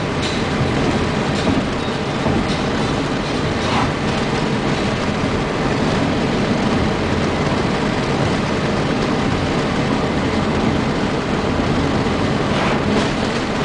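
Steady road noise inside a moving car at highway speed: tyres on asphalt and the engine running, a constant rumble. Near the end comes a brief rush of sound as an oncoming truck passes.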